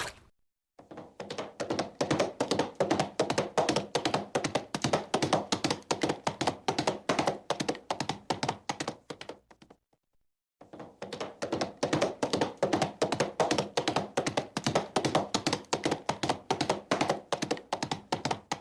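Horse hooves clip-clopping at a quick, even pace on a hard surface, about five strikes a second. Two passes, each fading in and then out, with a short break in the middle.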